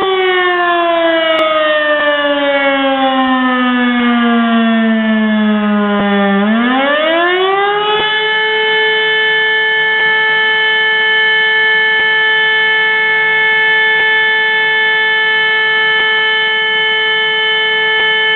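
Fire-alarm siren calling out the volunteer fire brigade. Its tone slides slowly down for about six seconds as it winds down, then winds back up to full pitch and holds one steady, loud tone.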